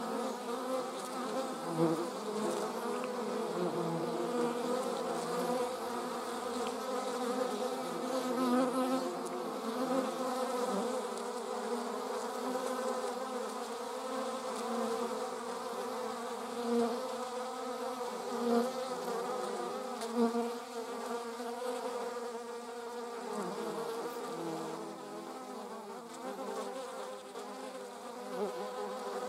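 Wasp buzzing in flight: a continuous wingbeat drone whose pitch wavers as it hovers and darts, with a few brief louder swells.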